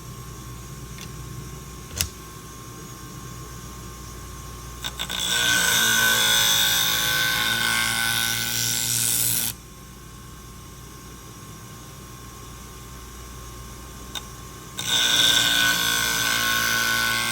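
Scissor blade being ground on the 240-grit diamond wheel of a Wolff Twice As Sharp sharpener, the machine humming steadily underneath. There are two loud grinding passes, one starting about five seconds in and lasting about four seconds, and another near the end; each cuts off sharply. This is heavy stock removal to grind out damage left by an earlier bad sharpening.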